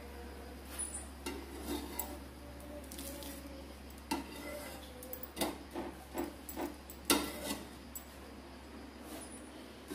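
Spatula scraping and tapping on a non-stick dosa pan while a dosa is loosened and folded, a string of clinks and knocks, the loudest about seven seconds in.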